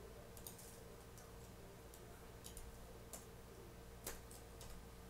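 Faint, scattered clicks of a computer mouse and keyboard during shortcut editing, over a low steady hum.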